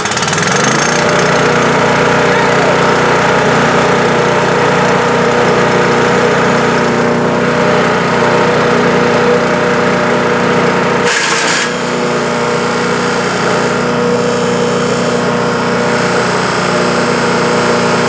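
Small gasoline engine of a Landworks mini wood chipper shredder, just started, coming up to speed in the first second and then running steadily at full speed, with a short break about eleven seconds in.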